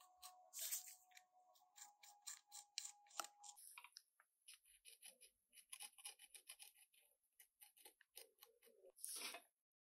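Faint, irregular scratching and tapping of a paint marker's tip dabbing on a small plastic model car part, with a longer scrape near the end.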